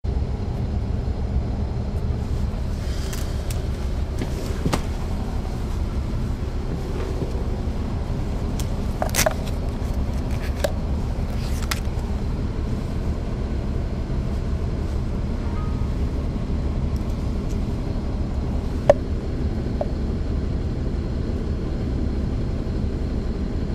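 The Caterpillar C13 inline-six diesel of a 2009 NABI 40-foot transit bus running steadily, heard inside the cabin from the rear seats near the engine. A few sharp clicks and rattles come through, the loudest late on.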